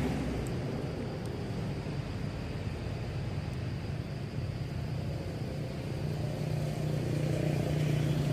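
A motor vehicle's engine running with a steady low hum, which grows louder about six seconds in.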